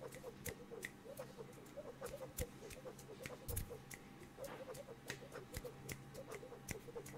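Close-miked mouth sounds: quick, wavering squeaky chirps made through pursed lips, imitating small creatures of nature, with scattered sharp clicks throughout.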